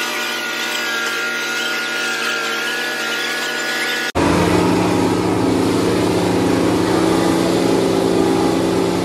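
Kubota MU5501 tractor's diesel engine running at steady high revs. After a sudden cut about four seconds in, a second pulling tractor's diesel engine runs hard at steady high revs, deeper and louder, blowing dark exhaust smoke under load.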